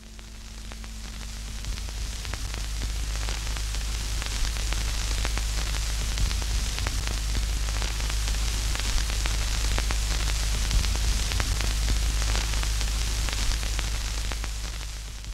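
Loud crackling static hiss over a deep steady rumble. It swells in over the first couple of seconds, holds steady with fine crackles all through, and cuts off suddenly at the end.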